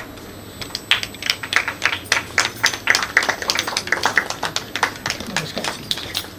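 Scattered applause from a small audience: individual hand claps at an uneven rhythm, several a second, starting about half a second in.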